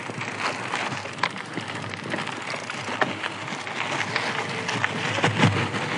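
Fat-tyre electric mountain bike rolling over a dirt and gravel road: tyres crunching on the loose surface with scattered sharp clicks and rattles.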